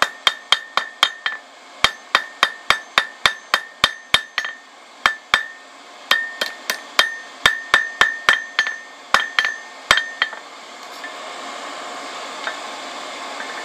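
Hand hammer striking red-hot rebar on an anvil, about three blows a second in runs with short pauses, each blow ringing. The steel is being drawn out square to a point. The blows stop about ten seconds in, leaving a steady rushing noise.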